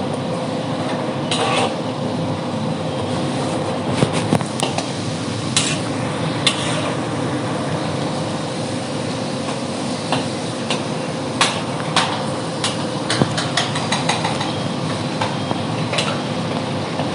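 Irregular metal clinks and knocks of a utensil against a plov cauldron as meat is stirred while frying, over a steady rushing noise from the stove or kitchen.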